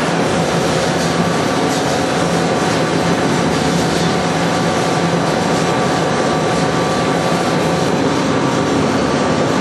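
XGJ550 vertical wood sawdust pellet mill running: a loud, steady mechanical drone with a few constant hum tones.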